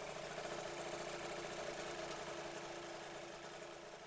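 Yamaha 125Z two-stroke motorcycle engine idling steadily, easing off slightly near the end.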